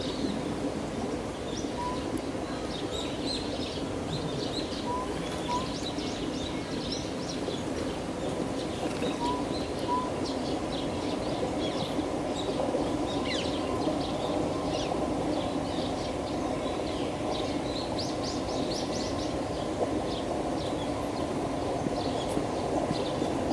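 Small birds chirping in short, scattered calls throughout, over a steady low background rumble.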